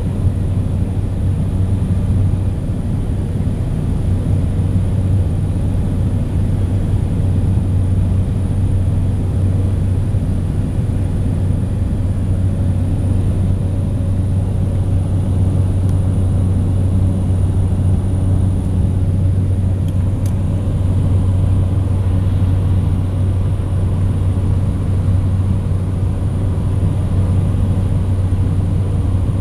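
Light propeller aircraft in flight heard from inside the cabin: a loud, steady engine and propeller drone with a deep hum underneath.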